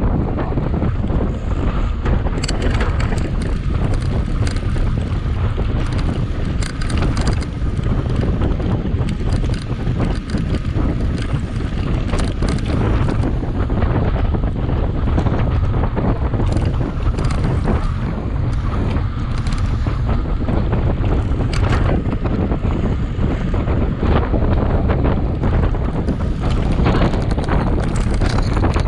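Wind buffeting the microphone of a camera on a mountain bike ridden at speed, with frequent small clicks and rattles from the bike over rough ground.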